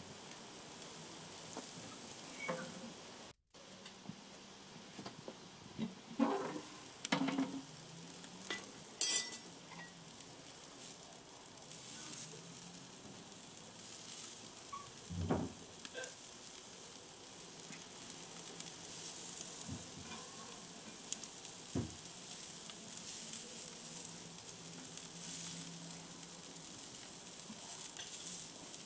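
Mititei sizzling on the hot grate of a charcoal grill, a steady hiss, with scattered clinks and scrapes from a metal spatula and fork turning them on the grate.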